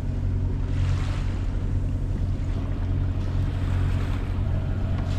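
Sailing yacht's inboard engine running at a steady speed, a low even hum, with wind and water noise rising and falling over it.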